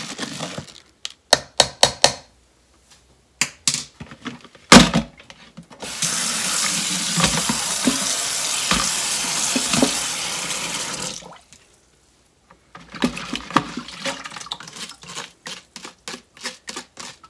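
Kitchen tap running into a plastic colander in a stainless steel sink for about five seconds, then turned off. Before it come scattered knocks and clatter, one sharp and loud about five seconds in. After it, a rice paddle scrapes and taps lightly against the plastic colander.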